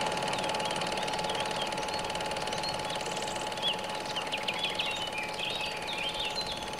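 Fast, even mechanical clatter with a steady hum, like a running film projector, slowly getting quieter. From about halfway in, small birds chirp in quick short calls over it.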